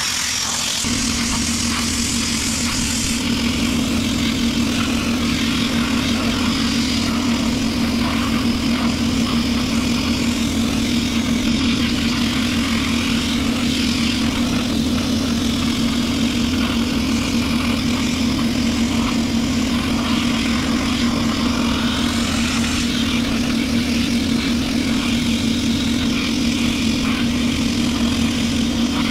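Harbor Freight pressure-pot sandblaster blasting abrasive onto a teak rocking chair, a steady hiss of air and grit from the nozzle. Under it, an air compressor starts just under a second in and runs hard with a steady hum.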